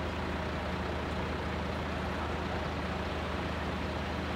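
A heavy engine idling with a steady, even low hum.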